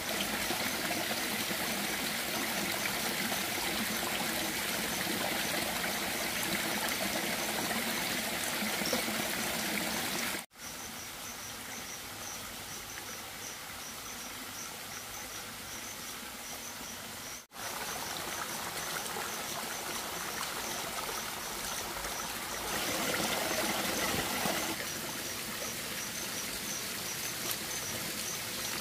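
Running stream water, a steady rush, with an insect chirping in a fast run of high-pitched pulses. The sound drops out abruptly twice, and the water is lighter in the middle section.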